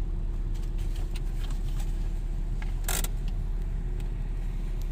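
A vehicle driving off-road: a steady low rumble with scattered rattles and clicks, and a brief louder rush of noise about three seconds in.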